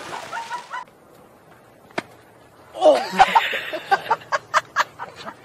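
The tail of a big splash in an inflatable backyard pool dies away within the first second. About three seconds in, voices start over a quick series of sharp knocks, several a second.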